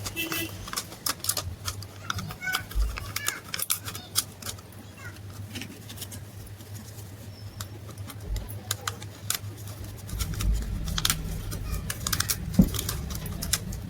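Irregular clicks and light metallic taps of tools and small parts being handled, over a low steady hum that grows louder near the end.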